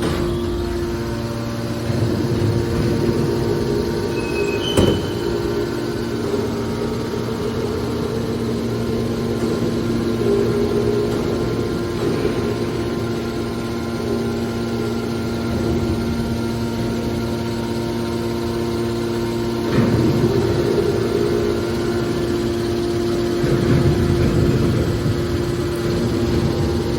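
Factory machinery running with a steady hum, with a sharp knock about five seconds in and louder, rougher surges around twenty and twenty-four seconds.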